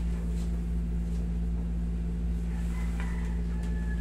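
Window air conditioner running with a steady low hum, with a few faint clicks and a brief faint high squeak about three seconds in.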